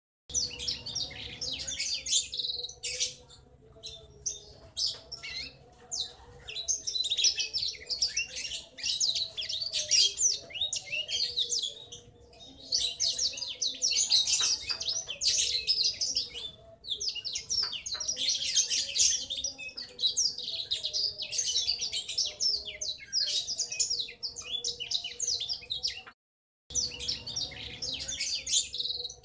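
Young male Blackthroat (black-throated canary) twittering in long rolling phrases of rapid high chirps, each run lasting several seconds with short pauses between. A long rolling twitter like this is taken as the sign of a male.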